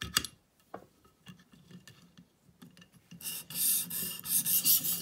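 A few scattered clicks and taps as the knife is flipped over in the sharpener's clamp. Then, about three seconds in, a 600-grit stone on a guided sharpener arm rasps in quick back-and-forth strokes along a thin paring knife's edge, taking the burr off.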